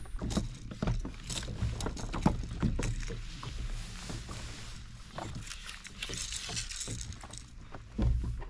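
Knocks and clicks of fishing gear being handled aboard a kayak, over a low rumble, with a short hiss about six seconds in and a heavier thump near the end.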